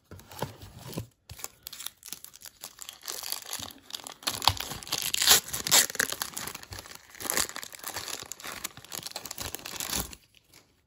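A trading-card pack's wrapper being torn open and crinkled by hand, a dense crackling that runs for about ten seconds and stops shortly before the end.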